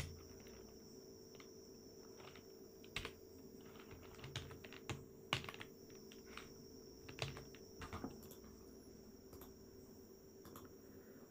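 Computer keyboard keystrokes, a dozen or so scattered faint clicks with pauses between them, over a faint steady hum.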